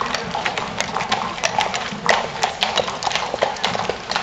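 Several horses walking on an asphalt street, their hooves making an uneven, overlapping clip-clop of sharp knocks.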